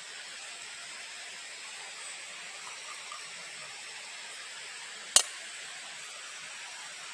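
Steady hiss with a single sharp snap about five seconds in.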